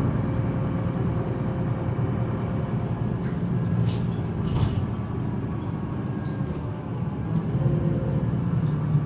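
Solaris Urbino 18 III articulated city bus running, its DAF six-cylinder diesel engine giving a steady low hum, with a few light clicks or rattles about four to five seconds in.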